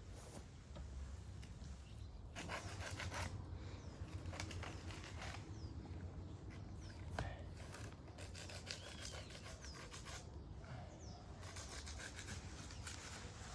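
Uneven scraping and rubbing strokes on brick and mortar, coming in bursts, with a few short bird chirps in the middle.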